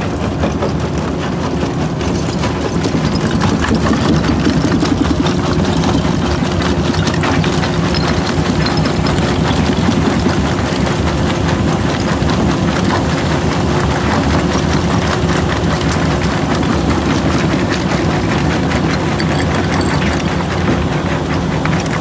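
McCloskey J40 jaw crusher running under load as it crushes concrete block and brick rubble. There is a steady heavy diesel drone, with constant clattering and knocking of rubble in the feeder and jaw.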